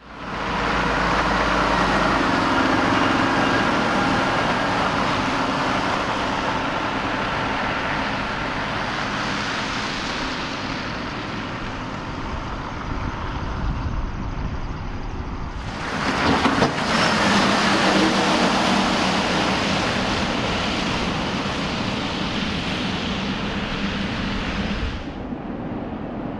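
Road vehicles driving on a snowy road: engines running under a steady hiss of tyre noise. A second, louder pass comes in suddenly about sixteen seconds in and drops away near the end.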